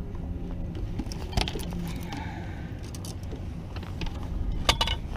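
Gear being handled aboard a small fishing boat: a few sharp metallic clicks and clinks, one about a second and a half in and a quick cluster near the end, over a steady low rumble.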